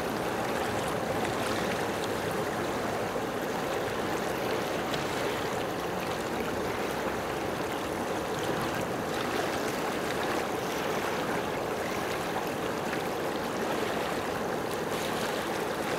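Steady, unbroken rush of moving water, like small waves washing on a shore.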